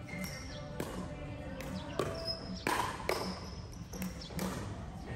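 Play on an indoor court: sharp hits at uneven intervals, about six of them, with shoes squeaking on the floor between them, ringing a little in a large hall.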